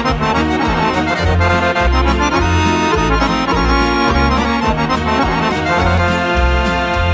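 Background instrumental music with a steady, pulsing bass line.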